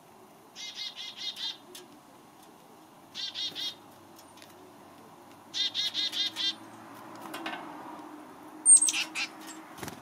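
Small birds calling at a backyard feeder: three bursts of rapid harsh notes, each about a second long, then a sharp high call near the end, over a steady low background rumble.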